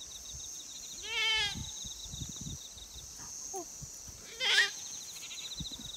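A goat bleating twice: a wavering call about a second in, then a shorter, louder one near the end.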